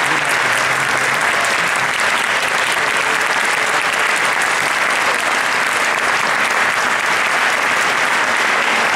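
Audience applauding: a steady, sustained round of clapping.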